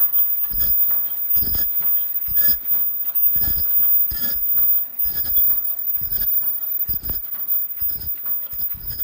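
Automatic disposable face-mask production line running, its mechanism cycling with a regular heavy stroke about once a second over a steady mechanical clatter.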